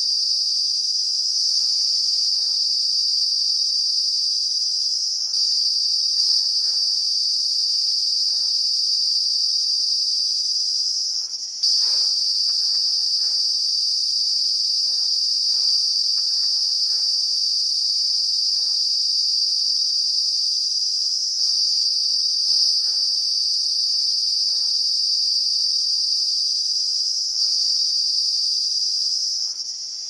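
A cicada calling at close range: a loud, steady, high-pitched trilling buzz made by its vibrating tymbals and abdomen. The song hitches slightly every few seconds, breaks off for an instant about a third of the way in, and stops abruptly near the end.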